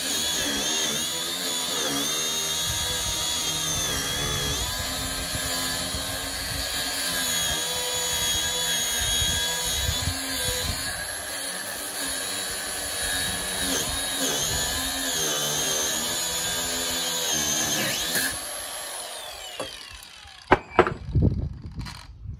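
Cordless angle grinder cutting through excess steel bar, a steady high whine that wavers in pitch as the disc bites. About 18 seconds in the motor is let off and spins down with a falling whine, followed by a few sharp knocks.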